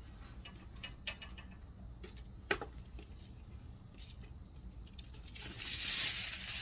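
Scattered light clicks and taps of things being handled, then, about five seconds in, a thin plastic sheet rustling and crinkling as it is shaken open, growing louder at the end.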